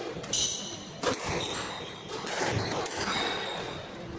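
Squash rally: several sharp hits of racket on ball and ball on wall, with court shoes squeaking on the wooden floor in short high squeals.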